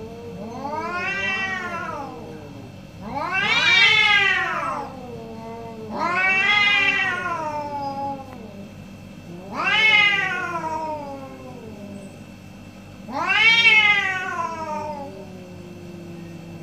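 Two domestic cats caterwauling at each other in an aggressive face-off: five long yowls, each rising then falling in pitch, with a low held moan between them.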